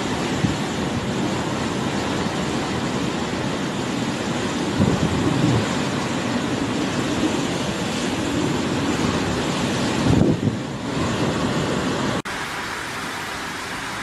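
Storm wind and heavy rain, a loud steady rush with stronger gusts about five and ten seconds in. Near the end it cuts to a quieter, steady rush of water.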